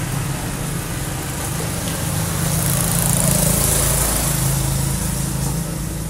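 A small engine running steadily, with a hiss of street noise that grows louder in the middle few seconds and then eases off.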